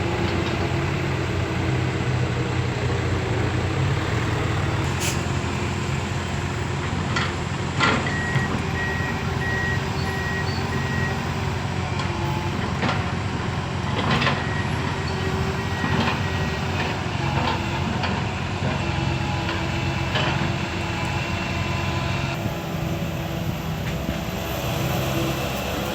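Komatsu PC160LC hydraulic excavator running steadily while digging, with occasional sharp knocks and clatters. A reversing beeper sounds a run of evenly spaced beeps about eight seconds in and again around fourteen seconds in.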